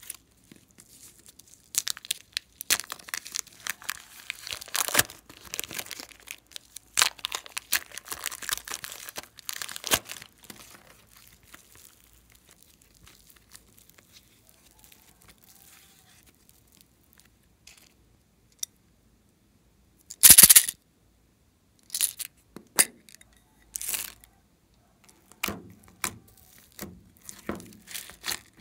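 Thin plastic zip-lock bags crinkling and crackling in dense bursts as modelling clay is squeezed and peeled out of them; after a quieter stretch, a few short sharp rips, then shorter soft clicks near the end as the clay is pressed into glossy slime.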